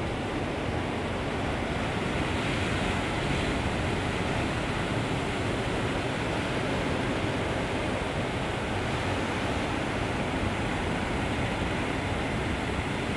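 Ocean surf breaking at the river mouth against a concrete tetrapod breakwater: a steady, unbroken rush of waves.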